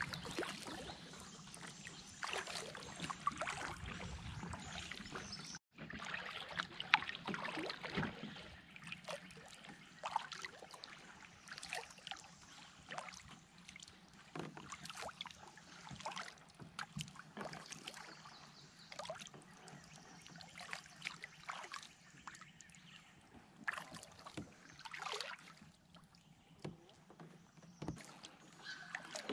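Kayak on calm water: irregular light paddle splashes and drips, with water lapping at the hull.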